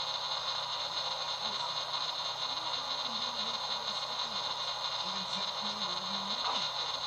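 Steady hiss of background noise, with faint low wavering sounds underneath.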